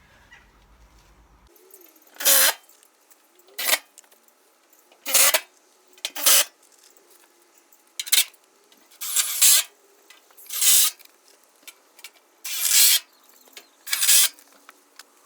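A series of about nine short rasping scrapes, irregularly spaced one every second or two.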